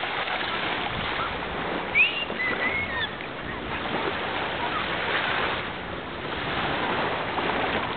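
Gentle surf washing onto a sandy beach, a steady hiss that swells around the middle and again near the end. A few brief high chirps come about two seconds in.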